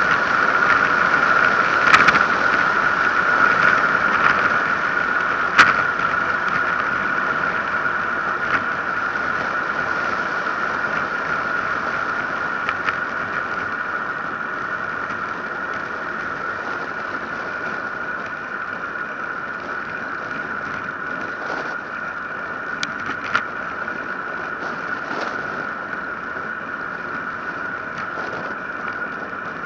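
Wind and tyre-on-tarmac noise picked up by a Drift HD170 Stealth action camera riding on a road bike during a descent, a steady rush with a steady high hum in it. A few sharp knocks from bumps in the road break through, and the noise slowly gets quieter.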